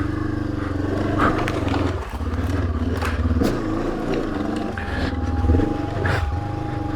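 Honda CB500X's parallel-twin engine pulling under load up a loose rocky hill climb, its revs rising and falling, with several sharp knocks from the bike striking rocks.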